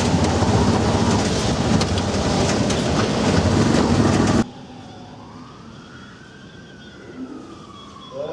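Loud, dense street noise from a busy street, cut off abruptly about halfway through. A quieter room tone follows, with a faint, slow wail that rises and then falls, like a distant siren.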